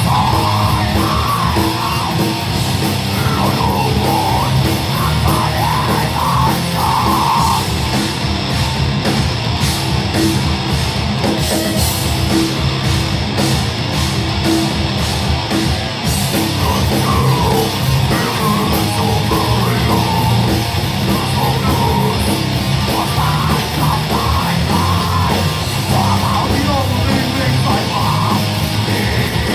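Heavy metal band playing live, with distorted guitars and drums and harsh shouted vocals that come and go. In the middle the band plays a choppy, stop-start passage.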